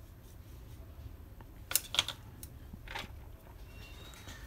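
A few light clicks and taps of small plastic lock parts and a paintbrush being handled and set down on the workbench, over a low steady hum.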